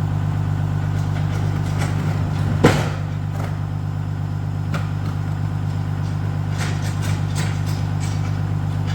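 Truck engine running steadily with a low hum, and one sharp knock about two and a half seconds in.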